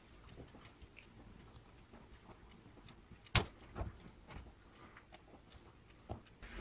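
Flat screwdriver working the metal retaining clips on the plastic gearbox housing of a Bosch GSB 18 V-EC drill: small scrapes and clicks of metal on plastic, with one sharp click about halfway through.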